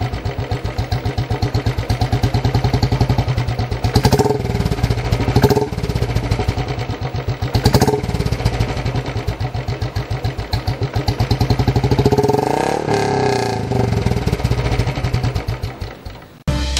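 Royal Enfield motorcycle fitted with a barrel exhaust silencer, idling with a steady pulsing exhaust beat. It is blipped with short throttle revs about four, five and a half and eight seconds in, and its pitch dips and comes back up about twelve seconds in.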